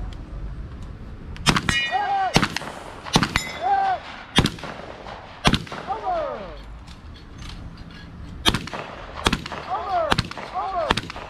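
Gunshots from a competitor's firearm, about nine shots fired roughly a second apart with a pause of about three seconds in the middle. Several shots are followed by a short ringing tone.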